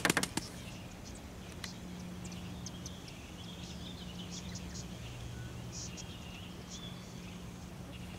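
Wild birds chirping faintly and intermittently over a steady low hum, with a quick run of sharp clicks right at the start.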